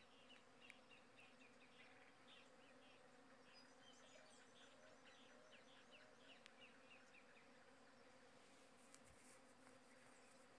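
Near silence with faint insect buzzing and a run of short, high chirps repeating a few times a second that fade out about two-thirds of the way through.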